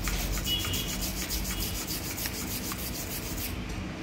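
Fast back-and-forth scrubbing of a small hand cleaning tool over the inside of a laptop, around the fan and heatsink, working dust loose. The scratchy strokes come several times a second and stop near the end.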